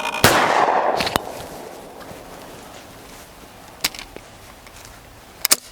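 A single shot from a Browning 525 20-gauge over-and-under shotgun, its report dying away over about a second and a half. Afterwards come a few short mechanical clicks.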